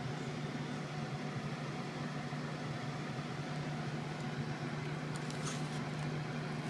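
A steady low hum runs throughout, with soft scraping from a handheld spiral vegetable slicer as its cap is twisted down a zucchini, shaving it into strands.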